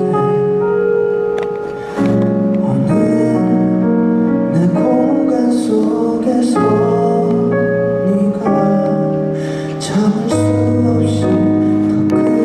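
Slow music played live: sustained chords that change about every two seconds.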